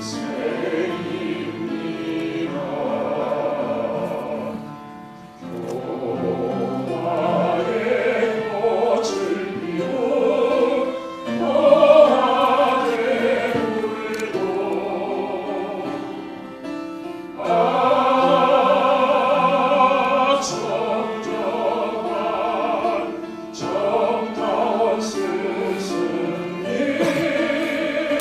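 A slow memorial song sung by a male singer with the congregation's voices joining in, accompanied by cello, violins and piano. The sung phrases are held with vibrato, with short breaks between them.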